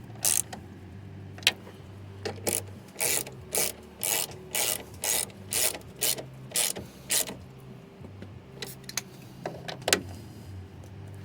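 Hand socket ratchet clicking in a run of short strokes, about two a second, with a few single clicks before and after, as the tail light's mounting bolts are driven in. A low steady hum runs underneath.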